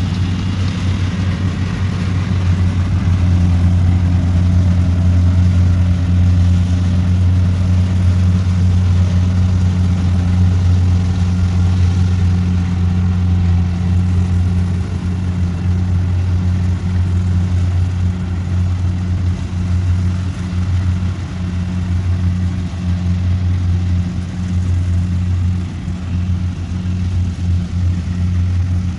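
Kubota rice combine harvester's engine running steadily under load while it cuts standing rice, a low, even drone that grows somewhat fainter in the second half as the machine moves away.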